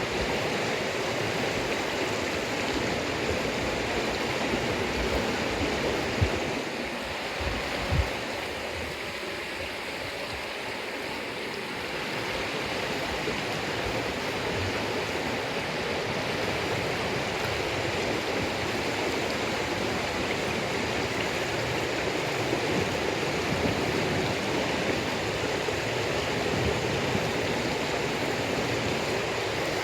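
Steady rushing of flowing water, with two brief low thumps about six and eight seconds in.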